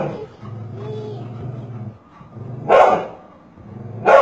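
A dog barking in sharp single barks: one as the sound opens, one nearly three seconds in, and one at the end. Between the barks it makes a low, steady growl.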